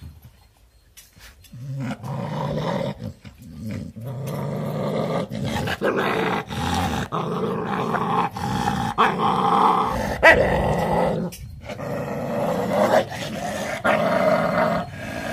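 A dog growling at its own reflection in a mirror, continuous from about a second and a half in, with a brief break about eleven seconds in.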